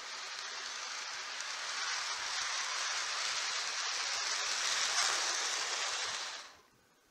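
Model electric train running past on its track: a steady rushing rumble of metal wheels on rail that builds as it nears, then cuts off abruptly about six and a half seconds in.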